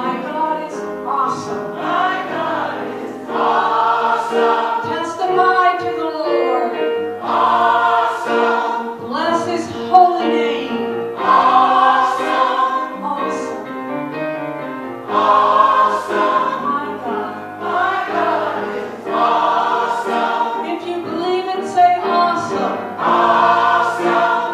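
Gospel choir of women's and men's voices singing together in phrases of a couple of seconds each.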